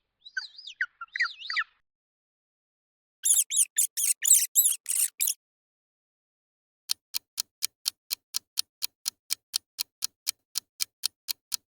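A few high chirps, then a rat squeaking rapidly for about two seconds, followed by a clock ticking about five times a second as a countdown.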